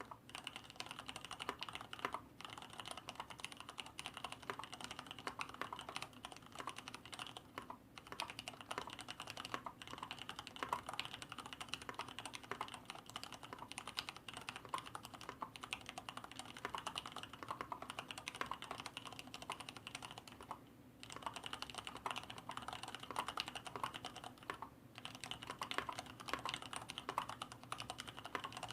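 Leopold FC900R full-size mechanical keyboard with Cherry MX Red linear switches and PBT keycaps being typed on steadily, fast runs of keystrokes broken by a few short pauses. Its stabilizers are lubricated and its case has built-in sound-dampening foam, giving a short, clean keystroke sound with little case ring.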